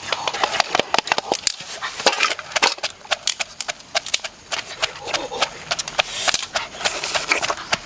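Quick, irregular sharp wooden knocks and snaps: a wooden pestle pounding chilies in a wooden mortar, and dry twigs being broken.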